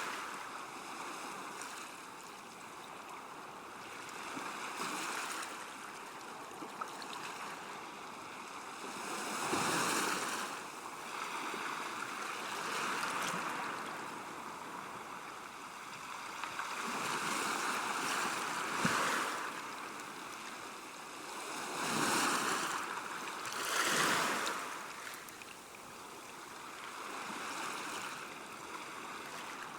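Calm sea washing on a shore: small waves breaking and receding in a steady hiss, swelling louder every few seconds.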